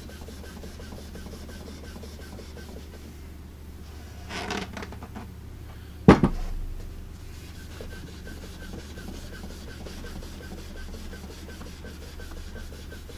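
Hand-rubbing on the finish of a wooden radio cabinet panel, working down spots where the finish has bubbled. About four seconds in there is a brief scuffle, and a couple of seconds later a single sharp wooden knock, the loudest sound, as the panel is moved.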